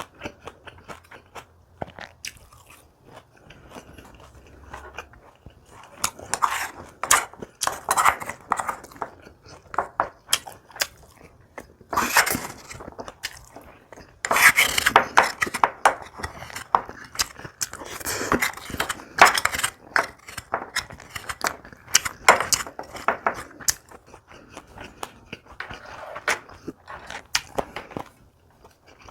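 Close-miked eating: a person chewing and crunching kimchi and rice, with wet mouth clicks in irregular bursts that start quietly, grow busier and louder through the middle, and ease off near the end.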